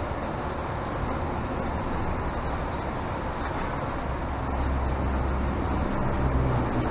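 Steady rumble of highway traffic on 81 overhead, heard from inside a long concrete tunnel, with a deeper low rumble swelling from about four seconds in.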